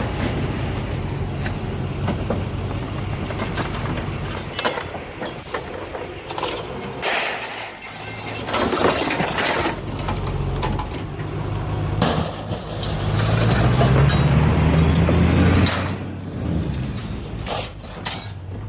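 Scrap metal being thrown onto a scrap pile, with several sharp crashing clangs over the steady hum of a heavy engine running. The engine gets louder for a few seconds past the middle.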